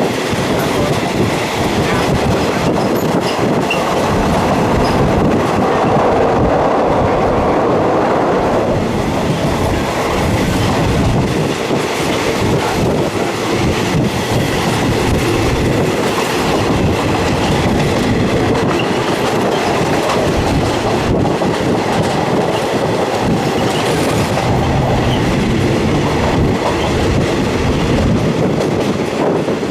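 Passenger carriage of a Thai ordinary train running along the track, wheels clattering over the rails, heard from inside the carriage by an open window.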